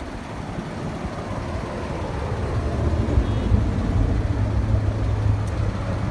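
A motor vehicle's engine running: a steady low rumble that grows stronger about halfway through.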